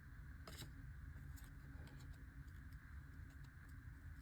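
Faint scattered clicks and light rustling of a foil trading-card booster pack being handled, one click a little clearer about half a second in, over a low steady room hum.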